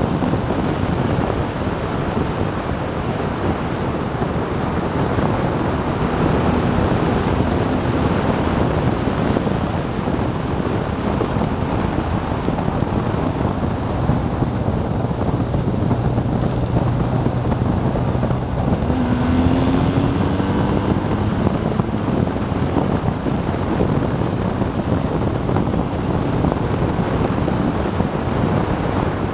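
Steady wind rush over the microphone from a BMW R 1200 GS Adventure at road speed, with the bike's boxer-twin engine running underneath. About two-thirds of the way through, the engine note rises as the bike pulls out of a bend.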